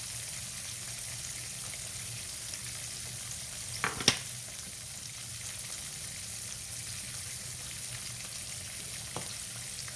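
Breaded turkey cutlets frying in shallow oil in a skillet, a steady sizzle throughout. A sharp knock or clatter about four seconds in and a lighter click near the end.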